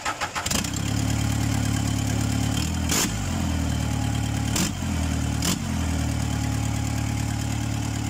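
Toyota 3-ton forklift engine cranking and catching about half a second in, then running steadily at idle, with three brief sharp bursts along the way. The exhaust pipe is broken off just below the exhaust manifold, so the exhaust escapes at the break.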